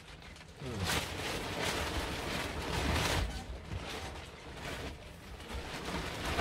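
A foam mattress in a quilted fabric cover being shoved and wrestled into a boat's berth: the cover rustling and scraping against the berth and lining, with dull bumps, busiest in the first three seconds or so.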